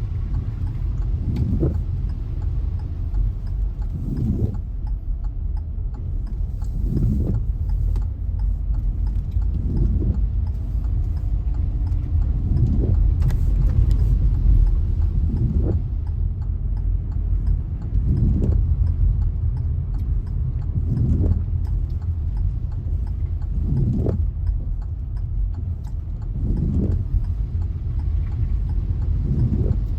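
Steady low rumble of a car driving, with a soft thump repeating regularly about every three seconds.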